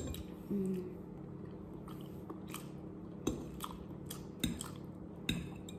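Close-up eating of pansit canton noodles and egg: chewing and mouth sounds, with a few sharp clicks of a metal fork against a ceramic bowl.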